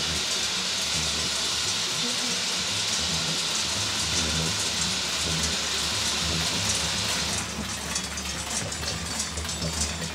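Massed clanging of the large metal bells worn at the waist by a troupe of carnival bell-ringers (zvončari), shaken as they march together in a dense, continuous jangle. About seven seconds in it thins out into more separate clanks.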